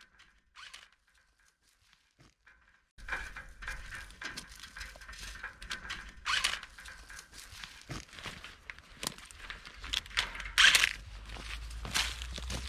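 Rustling, crinkling and scattered clicks of vine canes and a hand tool being worked along a trellis wire while tying vines, starting about three seconds in, with two louder rustles. Wind buffets the microphone under it.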